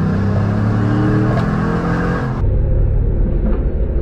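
Pickup truck engine under hard acceleration, its pitch climbing steadily. About two and a half seconds in, the sound cuts abruptly to a duller, steady low engine rumble.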